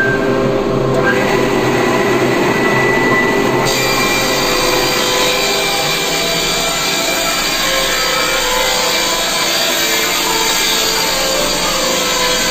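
Instrumental background music over the steady grinding and rubbing noise of a running bamboo-processing machine.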